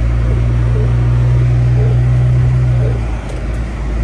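Car engine heard from inside the cabin as the car drives slowly through deep snow: a loud, steady low hum that drops away briefly about three seconds in, then comes back.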